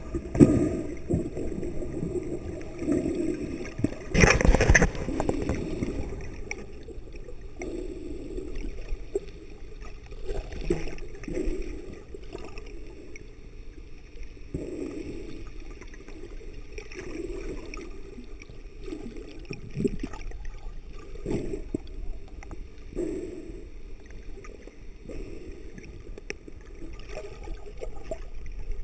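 Muffled water sound heard by a camera underwater: gurgling and sloshing that swells every couple of seconds, with a louder rush of water about four seconds in.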